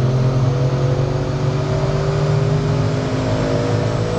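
Audi RS6 (C8) twin-turbo V8 under steady, gentle acceleration, a continuous engine and exhaust drone whose pitch rises slowly.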